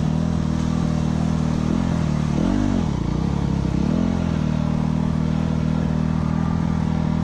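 Yamaha YZ250F dirt bike's single-cylinder four-stroke engine running at low revs at walking-to-jogging speed, with two brief blips of the throttle, rising and falling in pitch, about two and a half seconds in and again around four seconds.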